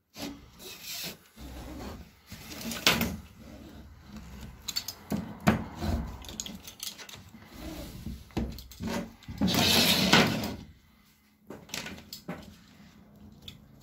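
Spline roller pressing a 5 mm spline and screen mesh into the channel of an aluminium insect-screen frame: irregular rubbing and scraping with small knocks, and one longer, louder scrape near the end.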